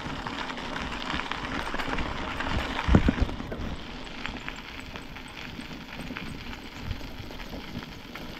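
Mountain bike rolling along a rough country road: steady tyre noise with many small rattling clicks from the bike, and a heavier knock about three seconds in.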